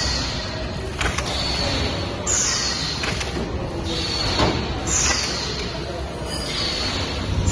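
A paper food-box forming machine running in steady cycles. Sharp mechanical clacks come between hisses of air that fall in pitch, one about every two and a half seconds.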